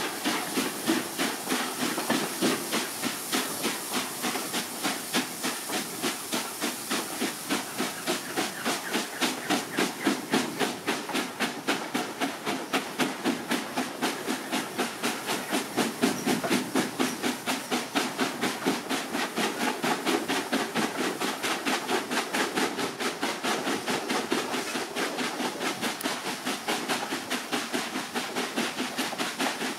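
Steam locomotive working a train, heard from a carriage window a few coaches back: a quick, even beat of exhaust chuffs, about four a second, over a steady hiss and the running of the coaches on the rails.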